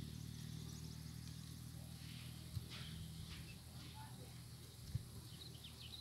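Faint outdoor ambience: scattered short, high bird chirps over a low steady hum, with two soft thumps, about two and a half and five seconds in.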